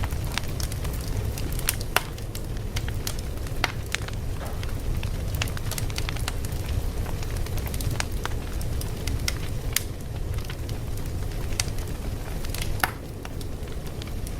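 Wood fire crackling: a steady low rumble of flames with irregular sharp pops and snaps, a few louder ones standing out.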